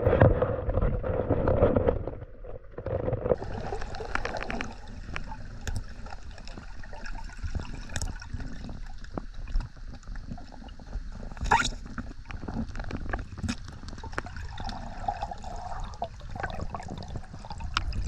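Underwater ambience heard through a diving camera: water gurgling and sloshing with scattered clicks and crackles, loudest in the first couple of seconds.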